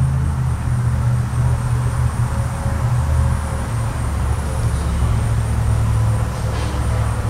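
Steady low hum of a running motor, with no change in pitch.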